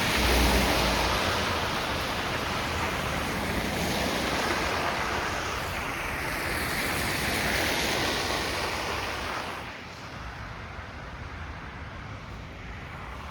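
Traffic passing on a wet road: tyres hissing on the slush, rising and fading as the vehicles go by, then dropping away to a lower hiss near the end.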